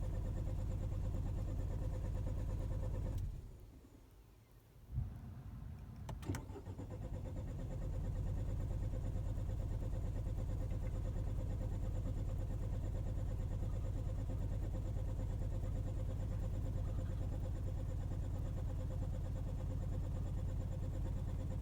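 Car engine idling steadily, switched off about three seconds in. After a short pause and two clicks it is started again and settles back into a steady idle.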